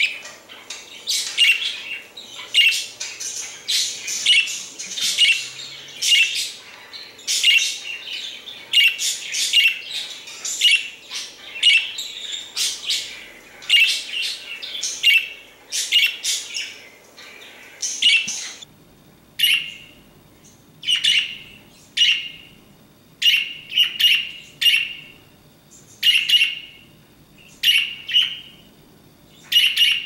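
English budgie (show-type budgerigar) calling in a dense run of chirps and squawks, loud but not high-pitched. About eighteen seconds in, the chatter gives way to short separate budgie chirps about a second apart.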